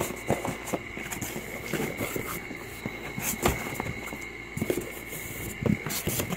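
Cardboard shipping box and the boxed airsoft rifle inside it being handled: irregular scrapes, rustles and knocks of cardboard, with one sharper knock about halfway through. A steady high whine sits underneath.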